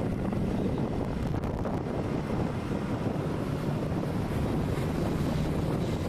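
Wind buffeting the microphone while riding along in traffic, over steady road and engine noise.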